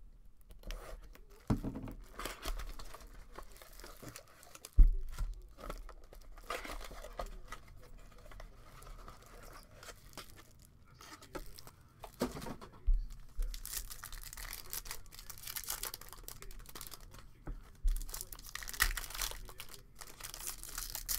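Trading-card box and foil card packs being torn open by hand: irregular crinkling and ripping of the wrapping. A sharp knock about five seconds in is the loudest sound, with a couple of smaller knocks later.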